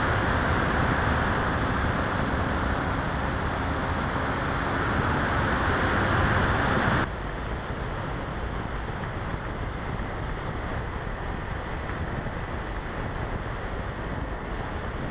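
Air rushing over the onboard camera of an RC Easy Glider in flight, with the faint steady hum of its electric motor and propeller. About seven seconds in the sound drops suddenly, as the motor is throttled back and the model glides on, leaving a quieter, steady wind rush.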